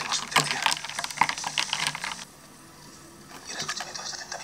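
Ice cubes clinking and rattling against a glass tumbler as an iced milky drink is stirred with a stick: a rapid clatter that stops about two seconds in, then a few faint clinks near the end.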